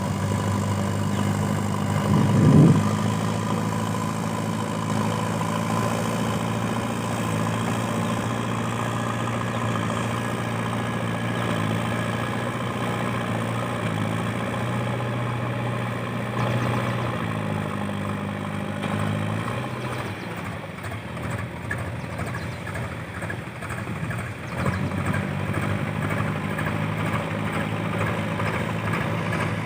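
JCB 3DX backhoe loader's diesel engine running steadily, with a short rising rev about two and a half seconds in. The engine note shifts pitch a little past the middle and turns rougher and more uneven for a few seconds after that.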